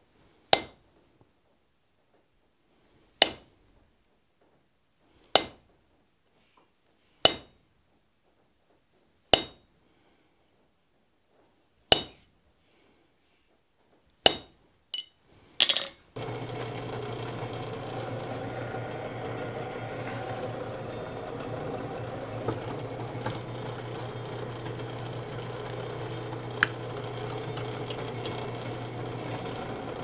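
Hammer striking a center punch on small steel plates resting on an anvil: seven sharp, ringing blows about two seconds apart, then a quick run of lighter taps, marking hole centers. About halfway through, a drill press takes over, its motor running with a steady hum as it drills the plate.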